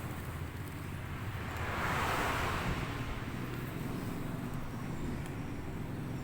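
Motor vehicle noise: a steady low engine hum, with a louder swell of road noise about two seconds in, like a vehicle passing.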